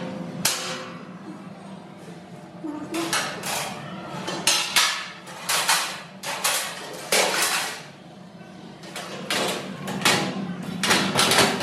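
Painted sheet-steel supermarket shelving parts clanking and scraping against the rack's slotted steel uprights as brackets are hooked in: a string of sharp metallic clanks, some with a short ring.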